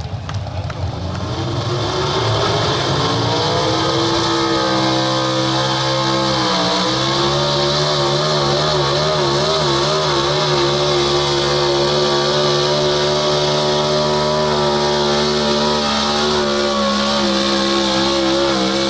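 Pro Stock 4x4 pulling truck engine at full throttle through a pull: it revs up over the first few seconds, dips briefly and recovers, then holds high and steady with a slight waver while dragging the sled.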